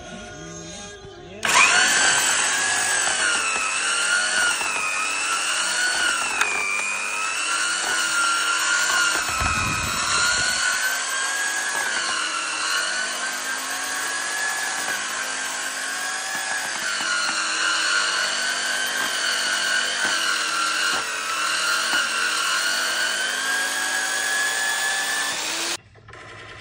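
Electric facing tool of an HDPE pipe butt-fusion machine switched on and running, its rotating cutter planing the pipe ends. A steady whine whose pitch wavers as it cuts starts abruptly about a second and a half in and cuts off abruptly near the end.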